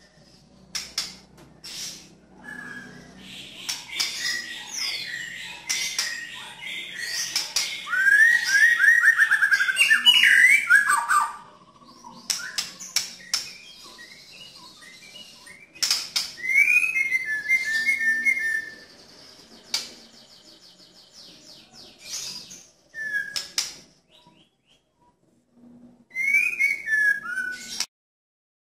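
White-rumped shama singing: varied phrases of harsh and clear whistled notes with sharp clicks between them, including a fast rapid-fire run of notes, breaking off abruptly near the end.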